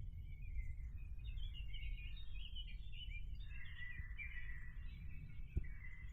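Small birds singing and chirping continuously in woodland, over a steady low rumble, with a single sharp tick about five and a half seconds in.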